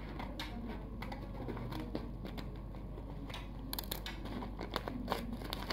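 Faint rustling and crinkling of a plastic-wrapped parcel being handled and opened, with a few sharp clicks in the second half.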